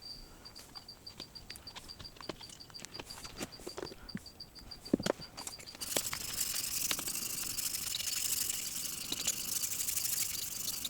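Light scattered clicks and taps, then about six seconds in a steady scraping rasp begins: a block plane blade being rubbed back and forth on the fine-grit side of a sharpening stone.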